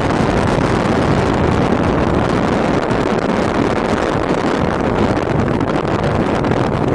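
A moving vehicle's steady rush of road and engine noise, with wind blowing on the microphone.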